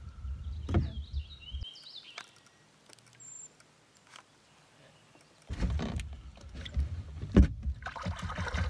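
Knocks and bumps on a plastic kayak over a low rumble, with a quieter stretch in the middle; a sharp knock about seven and a half seconds in is the loudest.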